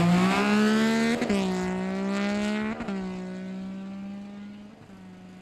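Sport motorcycle engine accelerating hard from a drag-race launch, with two sharp breaks in the engine note at upshifts about one and three seconds in. The sound fades steadily as the bike pulls away down the strip.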